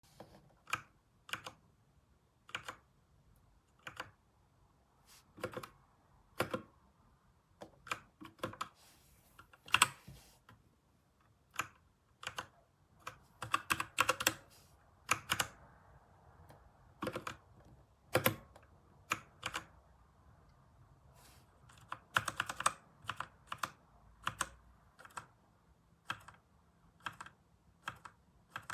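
Keys of a Redragon K617 Fizz 60% mechanical keyboard being pressed: scattered single keystroke clicks, with short fast runs of typing about halfway through and again later on.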